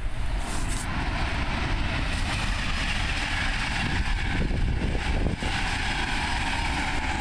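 Steady rushing noise with a fluttering low rumble: wind on the microphone.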